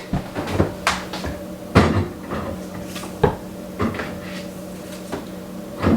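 Refrigerator door opened and protein shake bottles set onto its shelves: a series of separate knocks and clunks, the loudest about two seconds in and again near the end, over a steady low hum.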